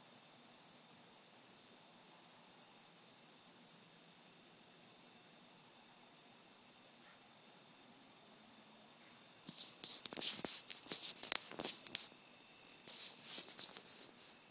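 Crickets chirping in a fast, even, high pulse over a faint hiss. About two-thirds of the way in, a run of loud, scratchy rustling and scraping bursts starts and drowns them out.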